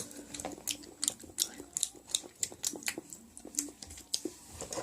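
Close-miked eating sounds: a run of sharp, irregular clicks and taps, about three or four a second, from chewing and chopsticks on the food container.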